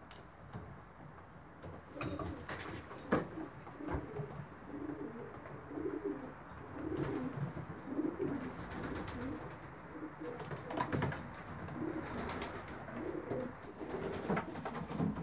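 Racing pigeons cooing, a run of low, repeated coos that starts about two seconds in, with a few short knocks among them.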